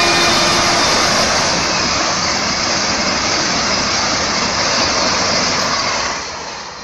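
Train 18 (Vande Bharat Express) semi-high-speed trainset passing at speed: a steady rush of wheels on rail and air as the coaches go by, with the last of its horn dying away in the first second. The rush fades down near the end.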